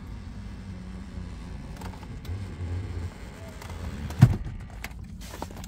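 Handling noise from a car seat being pulled back by hand: a few light clicks and knocks, with one sharp knock about four seconds in.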